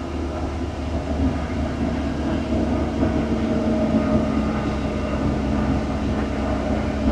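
Diesel engine of a piece of earthmoving equipment running steadily under the operator, with a constant low drone. A steady hum rises in about three seconds in and holds.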